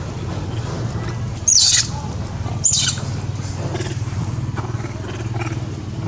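Long-tailed macaques giving two short, sharp, high-pitched screams, about one and a half and two and a half seconds in, over a steady low motor hum.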